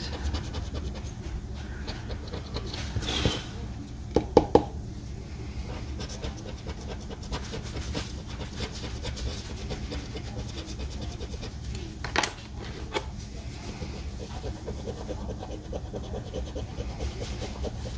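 Scratch-off lottery ticket being scraped with a hand-held plastic scratcher tool and later a coin, a steady fine rasping, broken by a few brief louder clicks.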